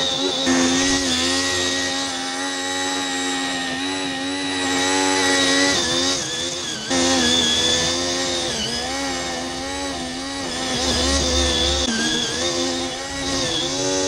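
Home-built remote-control weed trimmer running over grass, its motor giving a steady, high buzz. The pitch dips and recovers several times.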